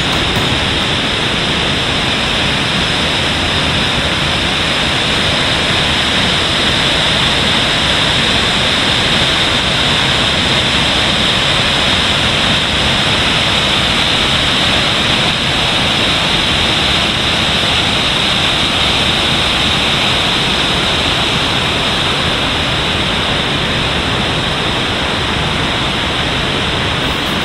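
Goryu Falls, a waterfall, pouring with a loud, steady rush of falling water that does not change.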